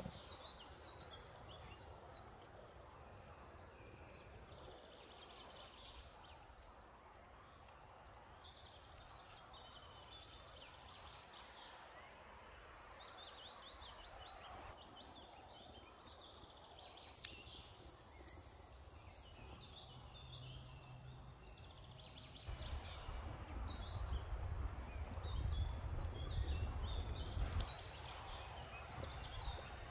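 Woodland ambience: several small birds chirping and singing over a soft hiss. For about five seconds near the end, a low rumble joins it.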